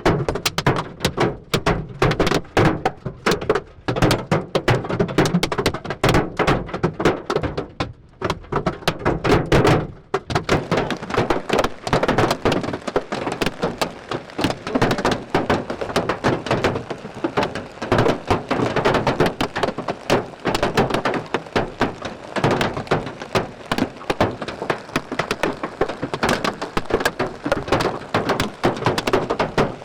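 Hailstones hammering on a vehicle's roof and windshield, heard from inside the cabin: a dense, irregular barrage of hard thuds and cracks, easing briefly about eight and ten seconds in.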